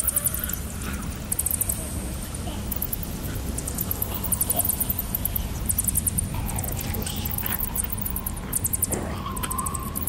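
Horror night-forest ambience sound effect: a steady low rumble under repeated short runs of rapid high chirping about once a second, with a thin drawn-out tone coming in near the end.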